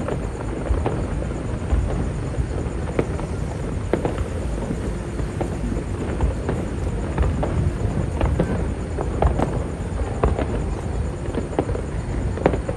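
Fireworks going off: irregular sharp bangs and pops over a steady low rumble.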